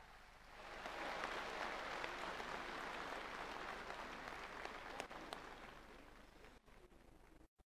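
Arena audience applauding, swelling about a second in and then slowly dying away; the sound cuts off just before the end.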